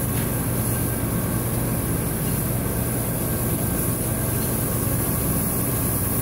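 Cam grinding machine running steadily, grinding a lobe on a 5.9 Cummins performance camshaft under a stream of coolant oil: a constant low hum with a steady high hiss over it.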